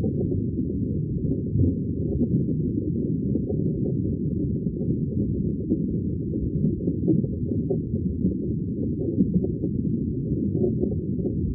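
Underwater ambience: a steady, muffled low rumble of moving water, with nothing high-pitched in it.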